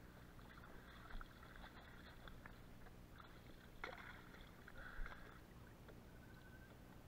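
Faint sounds of a fishing kayak sitting in shallow water: light water movement and small knocks, with a louder knock about four seconds in and another about five seconds in.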